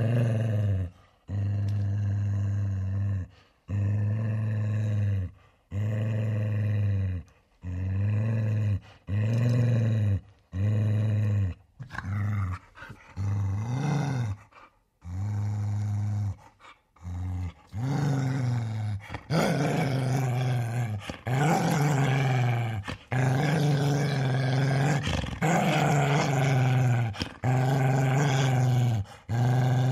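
Large angry dog growling in a series of deep growls, each a second or two long with a short breath between. In the last third the growls grow longer and nearly continuous.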